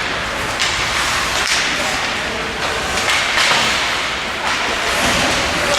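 Ice hockey play: skate blades scraping and cutting on the ice, with sharp knocks and smacks of sticks, puck and boards scattered through.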